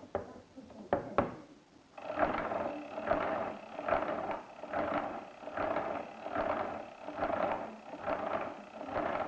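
Arithmometer mechanical calculator: a few sharp clicks, then its crank turned over and over, each turn a clattering ratchet of gears, about ten turns at a steady pace of roughly one and a half a second.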